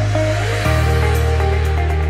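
Background electronic music: a held bass note drops to a new pitch under a rising swell about two-thirds of a second in, and quick high ticks come in toward the end.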